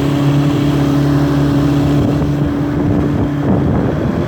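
Two-stroke outboard motor running steadily at one pitch, on a fuel mix with too much oil in it. About three and a half seconds in, its tone slides down and drops away, leaving wind rushing on the microphone.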